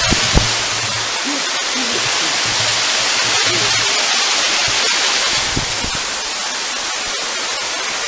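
Waterfall: a steady rush of falling water, with a couple of low knocks right at the start.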